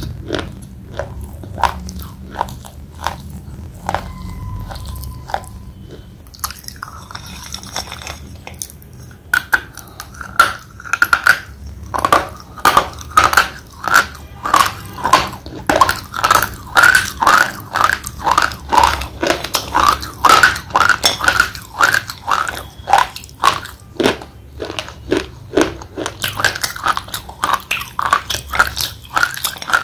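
Thick slate pencil being bitten and chewed between the teeth: a few sharp, scattered crunches at first, then, from about a third of the way in, steady chewing at roughly two crunches a second.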